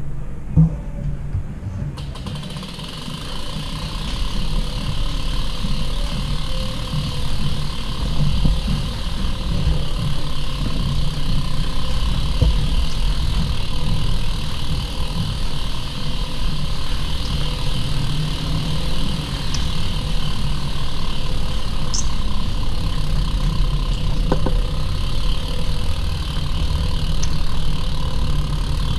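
Steady rumbling noise of riding a bicycle: wind buffeting the microphone over the hiss of tyres rolling on the path.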